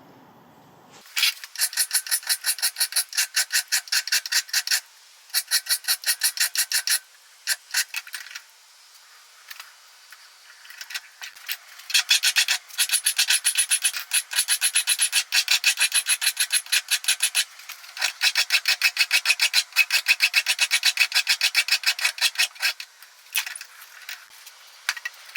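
Hand file rasping on the steel of a Remington 700 bolt handle in quick back-and-forth strokes, about five a second, rounding off the stub after it was cut hexagonal. The strokes come in runs broken by short pauses, with a longer pause in the first half.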